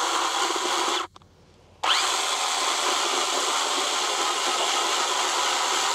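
Small Stihl battery-powered pruning chainsaw running and cutting into a dense artificial skull. It stops for under a second about a second in, then starts again and runs on steadily.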